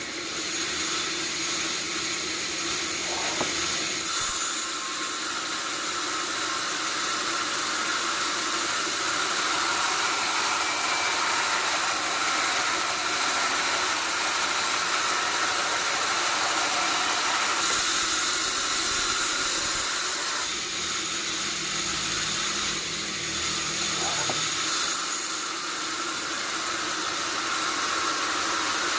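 Sawmill band saw running: a steady hiss over a constant hum, its sound shifting a few times as it goes.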